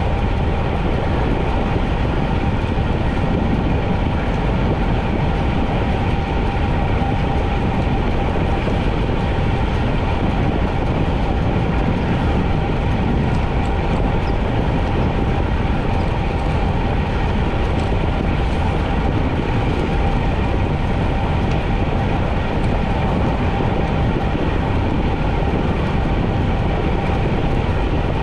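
Steady rushing wind on a GoPro microphone from a bicycle ridden at racing speed, with a steady hum underneath.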